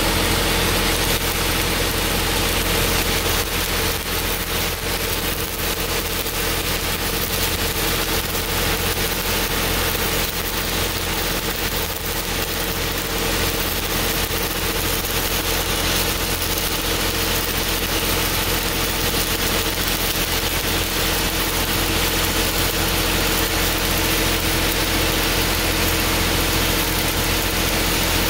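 Shielded metal arc (stick) welding on a 4-inch steel pipe joint: the electrode's arc crackles and sizzles steadily as the bead is run, over a steady low hum of running machinery.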